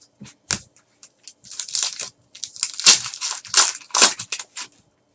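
A trading card pack's foil wrapper crinkling and tearing as it is ripped open and handled, in a run of irregular rustling bursts.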